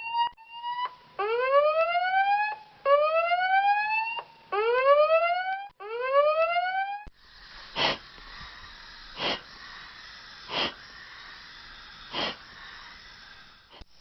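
Electronic whooping alarm: a couple of short beeps, then four rising whoops, each about a second and a half long. About seven seconds in it cuts to a steady hiss with a soft whoosh every second and a half or so, the cycling of an emergency respirator.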